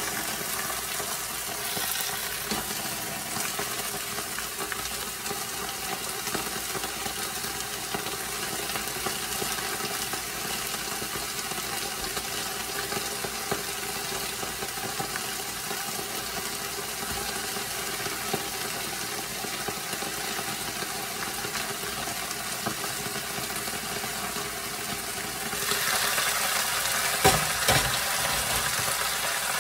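Leafy greens sizzling in oil under a glass lid in a frying pan, a steady hiss as they steam and wilt. Near the end the lid comes off and the sizzling gets louder, with a brief knock just after.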